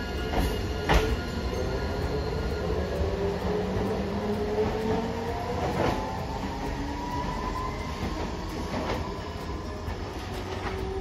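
Hiroden 3900-series articulated tram pulling away from the platform. Its motors whine, rising steadily in pitch as it speeds up, with a few sharp wheel clacks over rail joints, twice about a second in and again around six, nine and near eleven seconds.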